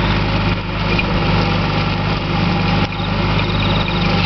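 East Wind 254 compact tractor's diesel engine running steadily while driving a rear-mounted slasher (rotary mower) through long grass.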